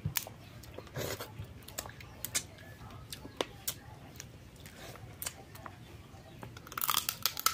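Cooked crab shell being cracked and picked apart by hand, small sharp cracks and clicks scattered throughout, with chewing between them; a louder crunch about a second in and a cluster of cracks near the end.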